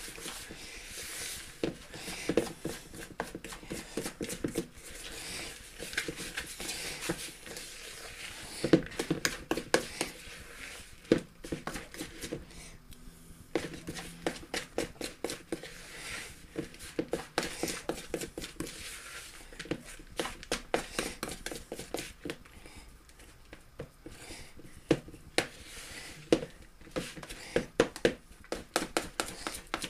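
A spoon scraping and clicking against a plastic mixing bowl as it stirs buttery ginger nut biscuit crumbs with melted chocolate: quick irregular scrapes and taps.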